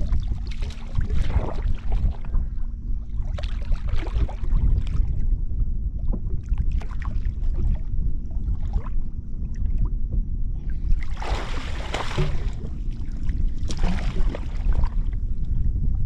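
Wind buffeting the microphone in a steady low rumble, with water splashing and sloshing in four bursts as a person wades chest-deep and works a fish trap under the surface.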